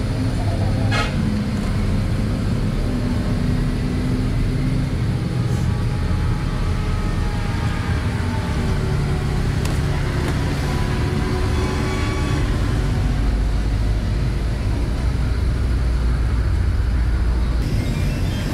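Steady low rumble of road traffic, with a sharp click about a second in.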